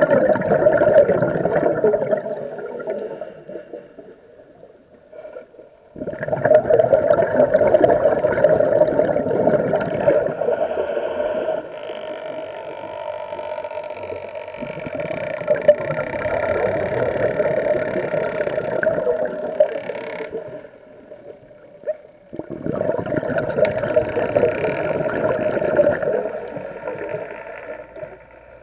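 Scuba regulator exhaust bubbling underwater, coming in surges of a few seconds with quieter gaps between breaths.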